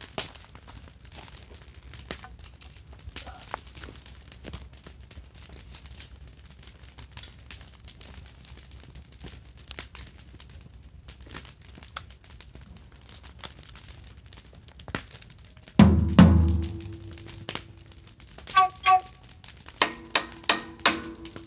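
Campfire crackling with small knocks and rustles. About 16 seconds in, a metal drum is struck once hard: a low thud that rings on as a steady tone. Near the end it is struck several more times with a ringing, pitched note as a beat starts up.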